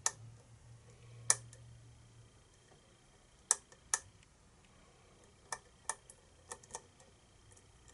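Sharp metallic clicks of lock picking tools working a pin tumbler lock with a Schlage keyway, about nine clicks at uneven spacing as the picker tries to get the pins to set.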